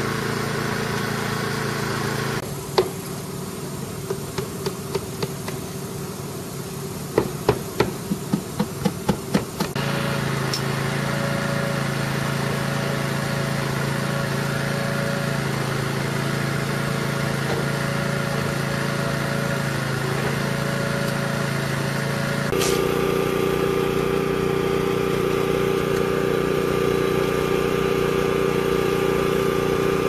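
Hammer nailing vinyl siding: a single strike, then four, then a quick run of about nine evenly spaced blows. Under it runs the steady drone of an engine, whose pitch changes abruptly twice.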